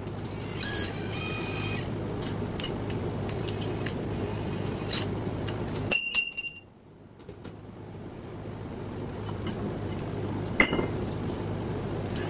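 Steel jaw puller and tools clinking and clanking against the motor rotor's shaft, with a brief metallic ringing squeal near the start and sharp ringing clanks about six and eleven seconds in, over a steady low rumble.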